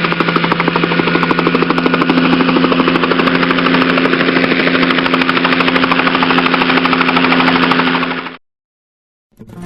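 Helicopter rotor running with a steady hum and a fast, even chop, cutting off suddenly about eight and a half seconds in.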